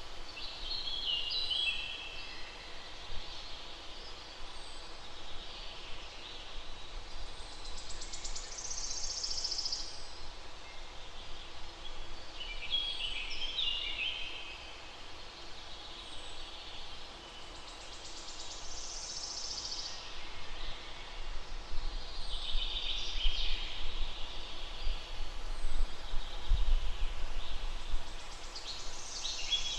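A songbird singing short phrases of quick, stepped notes, repeated every five seconds or so, over a steady hiss of background noise. A low rumble comes in during the second half.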